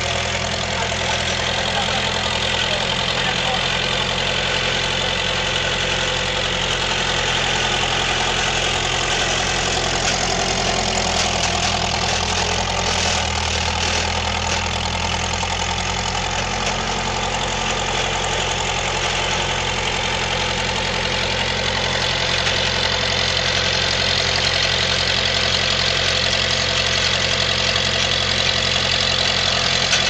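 Skid steer loader's engine running steadily while the machine lifts and sets a farm implement onto a trailer.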